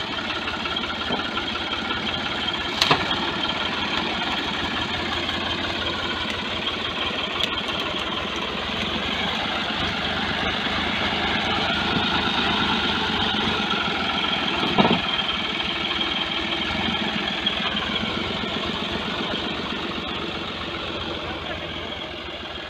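Ford 4560 tractor's diesel engine running steadily at low speed while pulling a loaded trolley, with a short sharp click about 3 seconds in and a louder knock about 15 seconds in. The engine grows a little quieter near the end as the tractor moves away.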